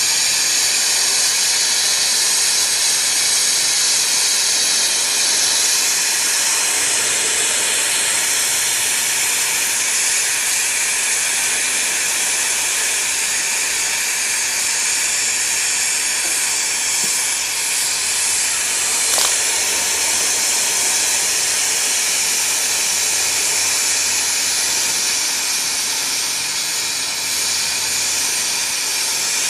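Brazing torch flame hissing steadily while it heats a copper refrigerant line joint on a new compressor. There is a single brief click about two-thirds of the way through.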